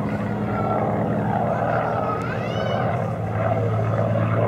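Hawker Hurricane's Rolls-Royce Merlin V12 engine and propeller droning steadily as the fighter flies overhead. A short rising-and-falling whistling call cuts in about two and a half seconds in.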